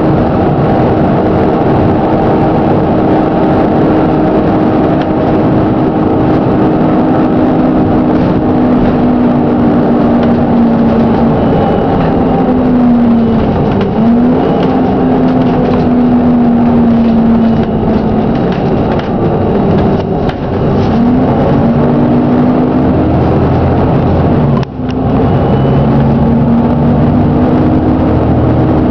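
Plaxton President double-decker bus running with a bad engine knock, under a whine from its Voith transmission that slides down in pitch and then back up several times as the bus slows and picks up speed again. The level dips briefly about three-quarters of the way through.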